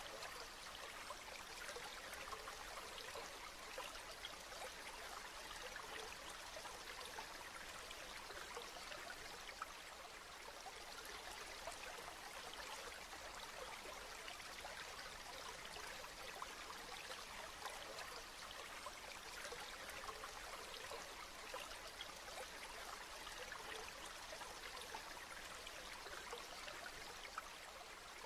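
Steady rainfall: a dense, even patter of many small drops.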